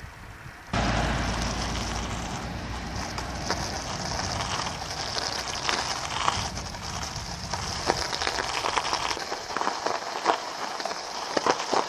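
Road-bike tyres rolling slowly over an icy, gritty, snow-covered road, with crackling and crunching throughout. It starts abruptly about a second in over a low rumble. Near the end the rumble fades and sharp crackles and clicks stand out.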